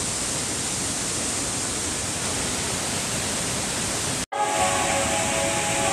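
Waterfall and rocky stream rushing steadily. About four seconds in, the sound cuts out for an instant and comes back with several steady held tones over the rushing water.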